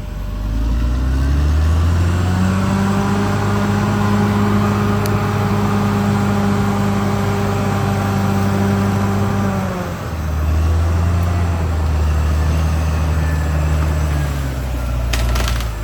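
CAT D6R XL bulldozer's diesel engine revving up over the first couple of seconds and holding a steady high speed. About ten seconds in it drops to a lower steady speed, then eases off again near the end, where a few sharp knocks sound.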